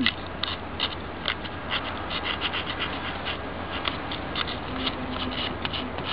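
Sandpaper rubbed along the edge of a decoupaged piece in short scratchy strokes, about three a second, sanding off the overhanging napkin at the edge so that it comes away cleanly.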